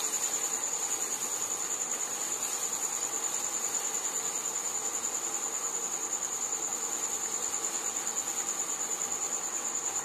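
A puri deep-frying in hot oil in a kadai, with the oil sizzling and bubbling steadily around it as it is pressed and turned. A continuous high-pitched trill with a fast, even pulse runs over the sizzle and is the loudest part of the sound.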